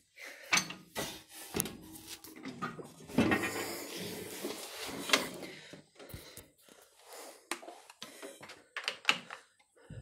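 Scattered knocks, clinks and rattles of someone climbing onto an old Farmall tractor and handling its controls, with a short stretch of shuffling noise a few seconds in; the engine is not yet running.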